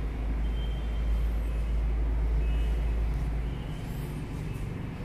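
Low steady outdoor rumble, loudest for the first three and a half seconds, with a few faint high chirps about a second in and again near the end.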